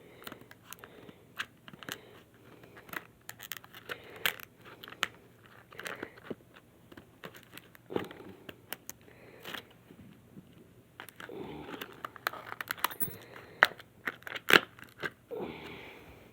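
Lock picking a Master Lock 140 padlock: irregular small metallic clicks and scrapes from the pick and tension wrench working the pins, with a few short rustling or scraping stretches from handling the lock.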